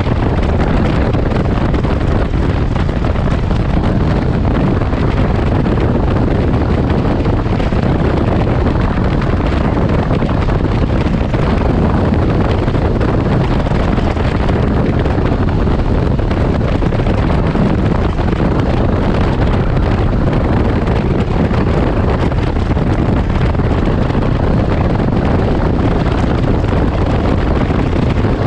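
Loud, steady wind rushing over the microphone at highway speed, over the low running noise of a Can-Am Ryker Rally three-wheeled motorcycle.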